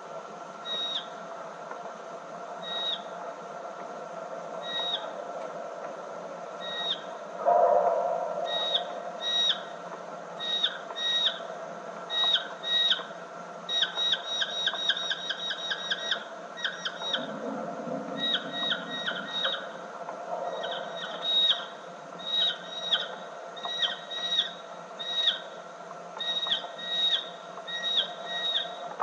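Slowed-down tape playback of a mustached bat's (Pteronotus parnellii) echolocation calls, heard as short whistles. Each holds a steady pitch and then drops briefly at the end: the constant-frequency part followed by the FM sweep. The calls come about every two seconds, speed up into a rapid run about halfway through, then space out again, over a steady tape hiss.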